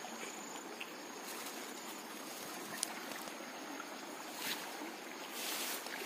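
Steady rushing outdoor noise, with a few brief rustles and brushes near the end as someone moves through dense leafy vegetation.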